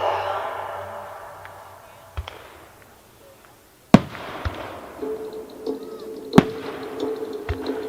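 Firework shells bursting: a faint thump about two seconds in, then a sharp, loud bang about four seconds in, and further bangs and cracks over the following seconds.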